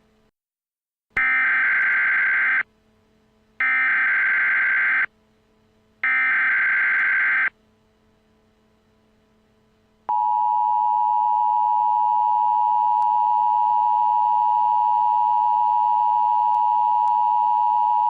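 Emergency Alert System broadcast signalling: three short, harsh bursts of SAME header data, followed by the steady two-tone EAS attention signal, which starts about ten seconds in and holds unbroken.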